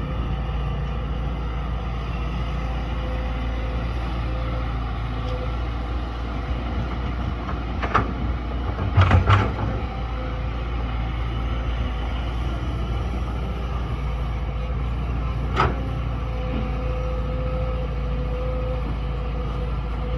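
Large excavator's diesel engine running steadily, with sharp knocks about 8 seconds in, a louder cluster of them around 9 seconds, and one more about 15 seconds in.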